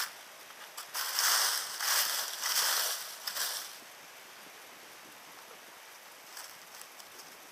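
Dry oak leaf litter rustling and crunching in three or four loud bursts, as the leaves over a metal-detecting target are disturbed; after that only a faint steady hiss remains.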